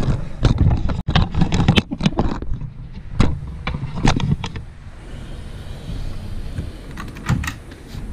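Irregular sharp clicks and knocks of hands and hardware being handled on a workbench: a quick run in the first two and a half seconds, then single knocks about three and four seconds in and a pair near the end.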